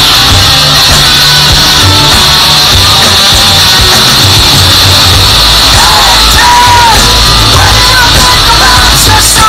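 Live rock band playing a song through a festival PA: loud guitars, bass and drums, with a singer holding a long note about two-thirds of the way in. Heard from within the crowd, so loud the recording clips.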